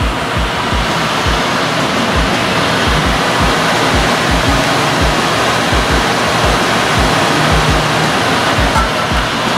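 Background music with a low, thumping beat under a loud, steady hiss.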